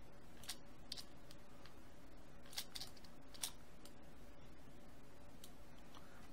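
About half a dozen sharp computer-input clicks from mouse or keyboard, at irregular gaps, over a faint steady hum.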